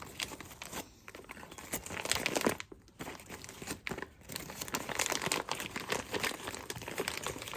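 A bag crinkling and rustling as the spare starter cord is packed back into it, in irregular handfuls with brief pauses about a second in and near three seconds in.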